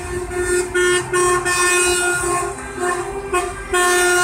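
Semi-truck air horns sounding a loud chord in a string of short blasts.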